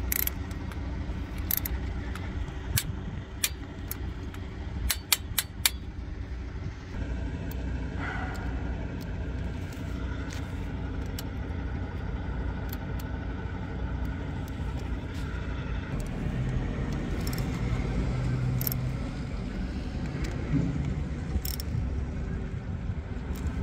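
Torque wrench ratcheting on an injector hold-down bolt of a Detroit Diesel Series 60 cylinder head, a run of sharp clicks over the first six seconds as the bolt is slowly snugged down, then a few scattered clicks and light handling of the injector wiring. A steady low rumble runs underneath.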